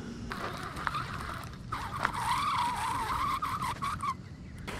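Baitcasting reel whirring as the line is worked, a wavering whine with a few light clicks that stops shortly before the end.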